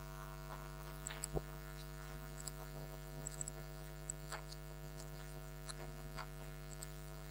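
Steady electrical mains hum, with a few faint, scattered clicks from a computer mouse and keyboard being worked.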